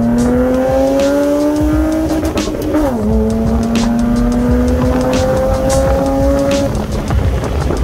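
BMW E30 325i straight-six, fitted with a custom valved exhaust, pulling hard under acceleration with its pitch climbing. About three seconds in, the revs drop sharply with an upshift and then climb again, and the engine note fades near the end.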